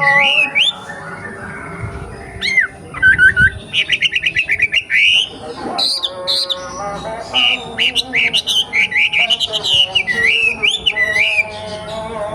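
Young straw-headed bulbul singing: loud, rich whistled phrases of quick rising and falling notes, some in rapid repeated runs.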